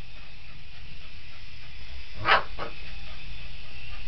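A Boston Terrier barks once, with a short second bark right after, about two seconds in, over a steady background noise.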